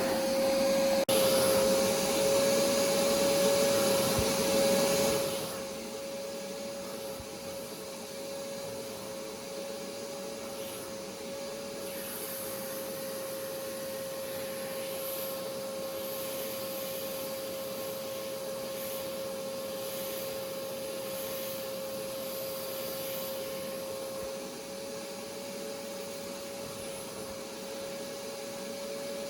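Hoover pet stain carpet cleaner's vacuum motor running steadily with a constant whine. For the first five seconds a louder rushing sound rides on it, then it settles quieter. A single click about a second in.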